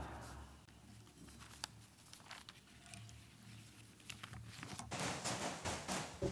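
Sheets of paper rustling and light knocks against a wooden lectern, close to its microphone: scattered and faint at first, then a denser run of rustling and handling noise from about five seconds in.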